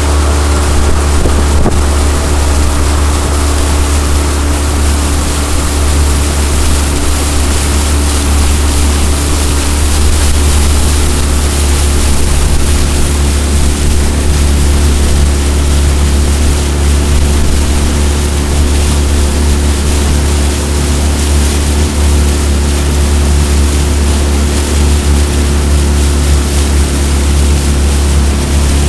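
A jon boat's outboard motor running at a steady speed under way, a constant low drone with wind buffeting the microphone and water noise over it.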